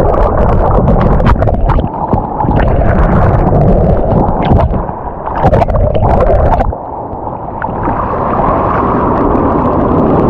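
Loud rushing noise of sea water washing and wind buffeting the microphone on a rocky shore, with scattered sharp clicks and knocks. The noise dips briefly twice, about halfway through and again a little later, then builds back up.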